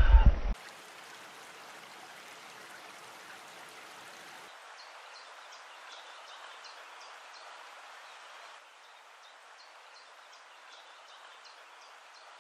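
Quiet outdoor ambience: the steady hiss of a flowing river, with faint high insect chirps repeating about twice a second from about four seconds in. A brief loud sound at the very start cuts off within half a second, and the background shifts abruptly about four and eight seconds in.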